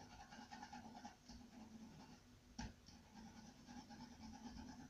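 Faint scratching of a colouring tool on paper as a picture is coloured in, over a low steady hum, with one short click about two and a half seconds in.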